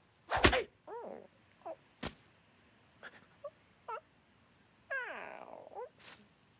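Cartoon character sounds and effects: a loud sharp hit about half a second in, then a few short squeaky calls, and near the end a longer call that glides down in pitch.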